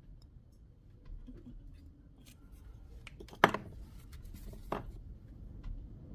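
Small clicks and handling noises with two sharp knocks, the loudest about three and a half seconds in and a second, weaker one a little over a second later.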